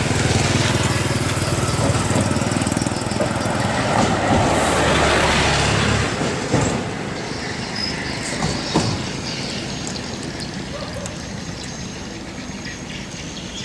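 A motor engine running close by with a steady low hum and a rush of noise that builds and then cuts off about six seconds in; a few light clicks follow.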